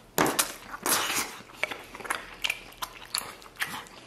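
Close-up mouth sounds of eating red-braised lamb ribs: sucking meat off the rib bone and chewing, with many short smacks and clicks.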